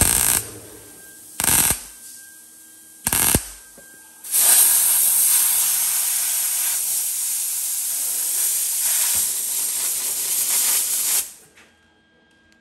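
Three short MIG welding tacks crackling on sheet steel, each under half a second and about a second and a half apart. About four seconds in, a compressed-air blowgun hisses steadily for about seven seconds, cooling the fresh tacks so the panel doesn't warp, then cuts off suddenly.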